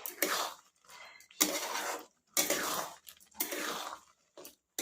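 A spatula stirring and scraping a thick, sticky amla and jaggery mixture in a cooking pan, in strokes about once a second.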